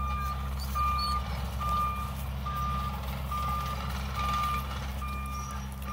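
Vehicle backup alarm beeping at an even pace, a little more than one beep a second, over a steady low engine hum.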